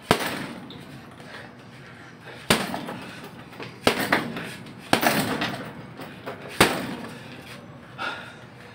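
Gloved punches landing on a hanging heavy punching bag: about seven sharp thuds at uneven intervals, each trailing off briefly, the last one lighter.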